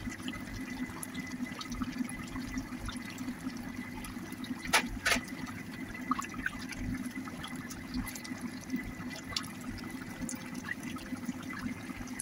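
Beef curry bubbling as it simmers in an open pan, with a wooden spoon stirring through it while the meat's released juices cook down. Two sharp knocks about five seconds in.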